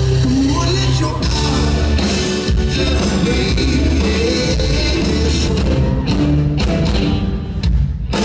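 A live rock band playing loudly in a concert hall, with drums and electric guitar, and some singing.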